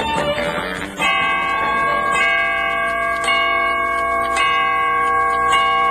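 A bell chiming, struck about once a second, each strike ringing on into the next, the way a clock strikes the hour. Banjo music cuts off about a second in, just as the chiming begins.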